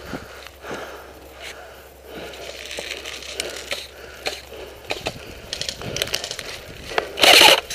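Movement noise from an airsoft player wearing a helmet camera: irregular scuffing footsteps and clicks of gear, with one loud, short burst of noise near the end.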